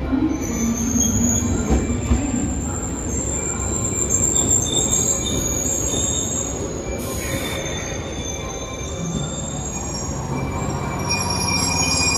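JR West 381-series limited express electric train pulling into the platform and slowing, with high-pitched metallic squeals as it brakes over a low rumble. A short hiss comes about seven seconds in.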